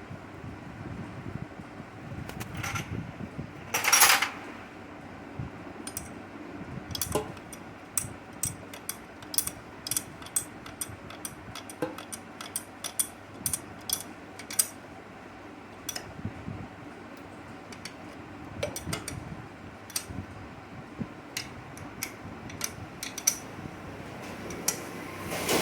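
Irregular light metallic clicks and clinks of hand tools and engine parts being handled during motorcycle engine work, with a louder clatter about four seconds in, over a steady fan hum.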